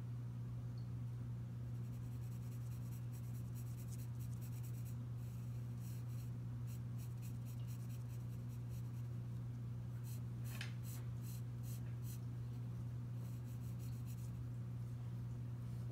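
Pencil scratching on paper in runs of short quick strokes as lines are drawn and hatched, over a steady low hum.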